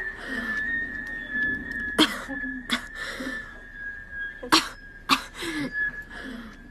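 A woman gasping and sobbing in short, sharp catches of breath, several in a row, with breathy exhalations and brief low moans between them: a fit of distress brought on by traumatic memories. A faint steady high whine runs underneath.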